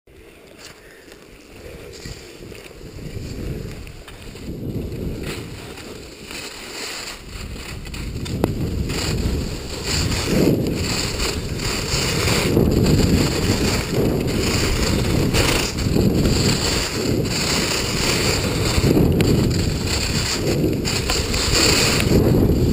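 Wind rushing over the microphone of a camera worn by a downhill skier, with the hiss of skis running over packed snow. It grows louder over the first eight seconds or so as the skier gathers speed, then holds steady.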